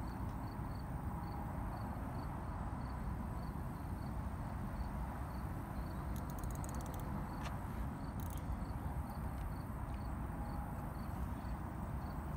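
An insect chirping evenly, about three short high chirps a second, over a steady low rumble. A few faint ticks come about halfway through.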